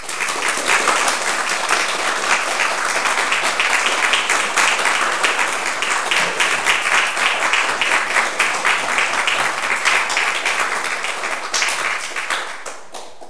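Audience applauding, a dense steady clapping that thins out into a few scattered claps near the end.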